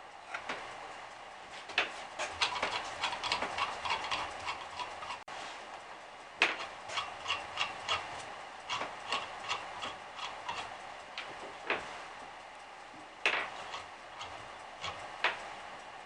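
Irregular sharp clicks and light metallic clatter as the drill press is worked on by hand and set to a higher spindle speed. The clicks come in a dense cluster about two to five seconds in and again from about six to eleven seconds, with single louder clicks near thirteen and fifteen seconds.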